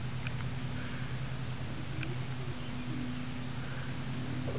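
Crickets trilling steadily in a grassy field, over a steady low hum, with two faint ticks about a third of a second and two seconds in.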